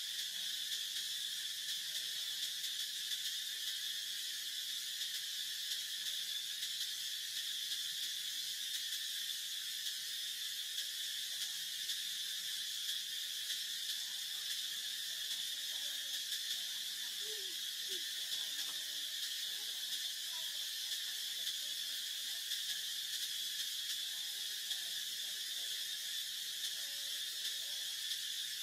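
Steady chorus of insects in tropical forest: a continuous high-pitched shrill drone that holds level throughout.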